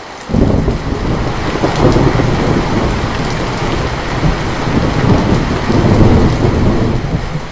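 Heavy rain falling steadily. A deep rumble of thunder comes in suddenly just after the start and rolls on until near the end.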